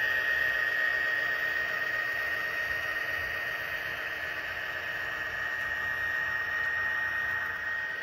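HO scale model freight cars' metal wheels rolling along the track close by: a steady whirring hiss with one high steady tone through it, easing slightly toward the end.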